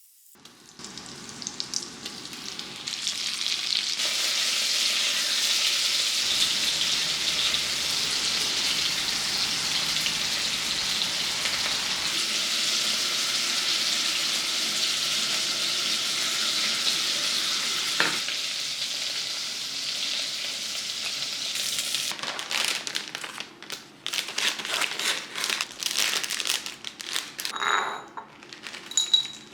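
Food frying in a hot pan: a steady sizzle that builds over the first few seconds and holds. In the last several seconds it breaks up into short, irregular clicks.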